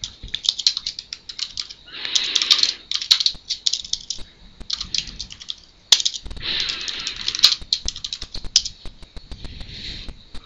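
Computer keyboard being typed on, with quick runs of keystrokes broken by short pauses.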